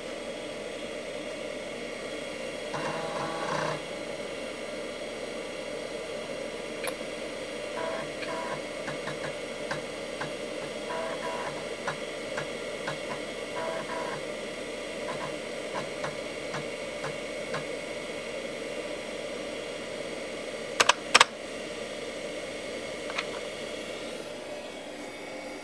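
5.25-inch floppy drive of a 486 PC reading a boot disk: the head stepper clicks and buzzes in short irregular runs over the steady hum of the computer's fan. Two loud sharp clicks about 21 s in.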